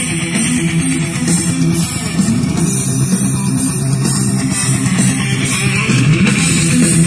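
Guitar-led music with a steady beat, played through a homemade mono speaker box driven by a TDA2030 amplifier from an MP3/Bluetooth module.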